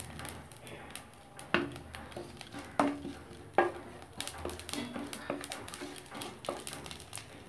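Wooden spatula stirring whole spices (cumin seeds, cardamom, cinnamon) as they fry in oil in a metal kadai, with faint sizzling and several sharp knocks of the spatula against the pan that ring briefly.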